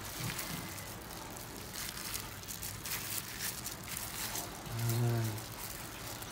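Soft clicks and rustles of hands coating chicken pieces in flour over a steady hiss, with a brief low hum of a voice about five seconds in.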